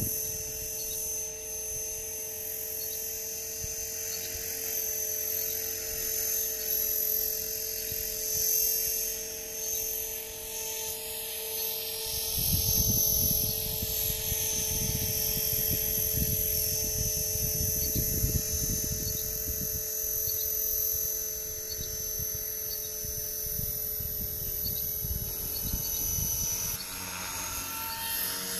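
Blade 450 3D electric RC helicopter in flight: its brushless motor and rotor give a steady high-pitched whine. Gusty low rumbling comes and goes for several seconds in the middle.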